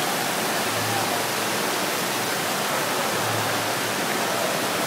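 Steady rushing of water in an indoor waterpark, from the flowing lazy river, water slides and falls, with a faint low hum that swells twice.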